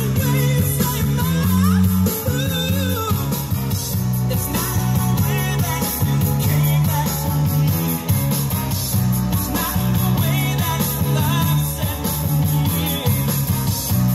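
Music with a singing voice, playing steadily, with guitar and a beat.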